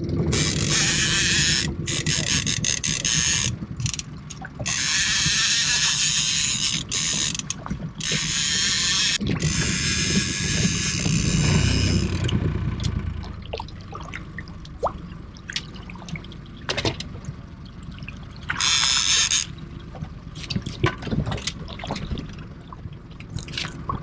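A fishing reel's drag buzzes as a hooked landlocked salmon pulls line off in runs: three long runs over the first twelve seconds and a short one near twenty seconds, over a low rumble. Between and after the runs come scattered small clicks and splashes.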